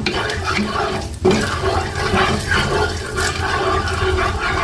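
Cooking oil heating in a wok on the stove, with a steady hiss.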